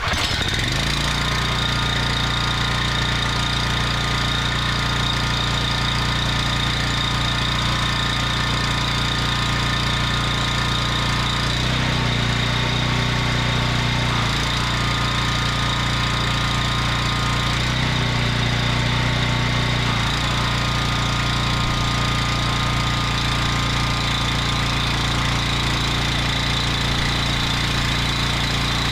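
Honda GX390 single-cylinder gas engine running steadily, driving a triplex plunger pressure-washer pump. The low engine note shifts briefly twice, about 12 and 18 seconds in, as the pump builds pressure toward 4,200 psi.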